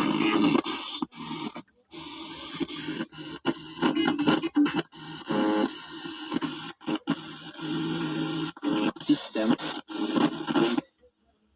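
Radio broadcast from a Goldstar portable CD radio cassette player's speaker, with scratchy crackle and many abrupt dropouts. It cuts out to near silence shortly before the end.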